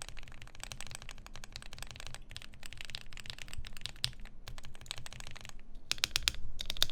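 Mechanical keyboard with lubed and filmed Alpaca linear switches and 205g0-lubed Durock stabilizers, the board out of its case, typed on in a rapid, steady clatter of keystrokes. About six seconds in, a few separate, louder key presses follow.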